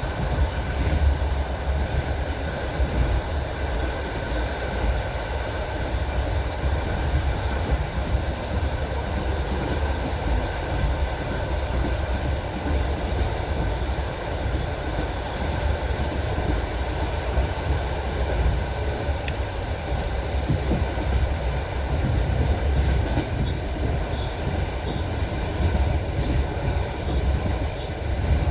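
Train wheels knocking over the rail joints, the rhythmic clatter of a moving train, over a steady low rumble.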